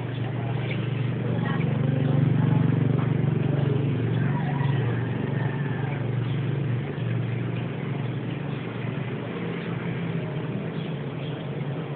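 Steady low droning hum that swells about two seconds in and eases off after about seven seconds, the kind of 'strange sound from the sky' the uploader set out to record.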